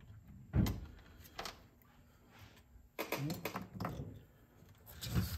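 Small knocks and clicks of parts being fitted into a cassette deck's tape transport mechanism by hand: one sharp knock about half a second in, a lighter click a second later, and another knock right at the end.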